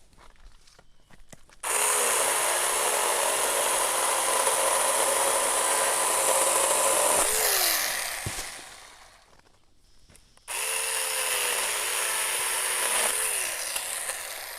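24-volt ASJMREYE 4-inch cordless mini chainsaw cutting tree limbs in two runs: a long run of about six seconds, a pause, then a shorter run of about three seconds. Each run ends with the motor briefly rising in pitch, then winding down.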